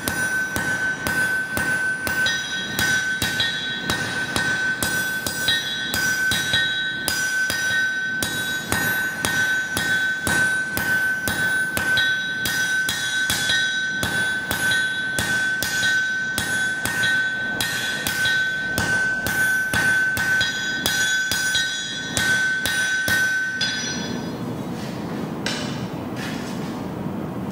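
Hand hammer striking a red-hot wakizashi blade on a steel anvil, two to three blows a second, with the anvil ringing in a steady high tone under the blows. The hammering stops about four seconds before the end, leaving a low steady rush.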